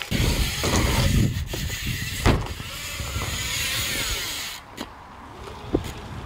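BMX bike tyres rolling and rumbling on a ramp surface, with a sharp knock about two seconds in; the rumble drops off to a quieter hiss after about four and a half seconds.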